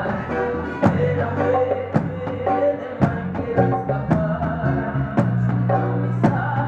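Live reggae band playing: a bass line and keyboard chords under drum hits that land about once a second.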